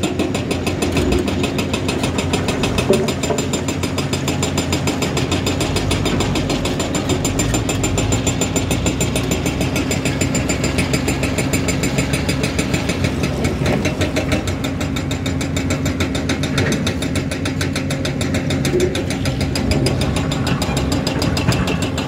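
Heavy diesel engine of quarry machinery running steadily, with one sharp knock about three seconds in.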